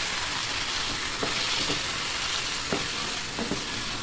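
Chicken roast sizzling in a nonstick kadai while a wooden spatula stirs it, cooking in its own released juices with no water added. A few light knocks of the spatula against the pan come through the steady sizzle.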